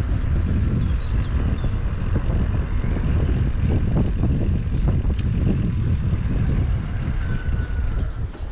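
Wind buffeting the microphone of a camera riding on a moving bicycle, a steady low rumble with gusty swells. Faint bird chirps come through now and then.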